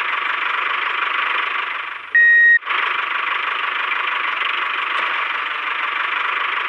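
A DIY mini tractor running with a steady engine-like drone. It cuts out about two seconds in for a single loud high beep lasting about half a second, then carries on.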